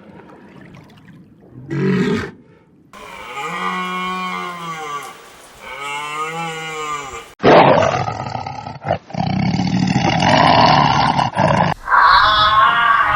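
A run of recorded animal calls. First comes a short burst, then two long, drawn-out calls that rise and fall in pitch. Then a loud, rough roar with short breaks lasts about four seconds, and a higher, wavering call begins near the end.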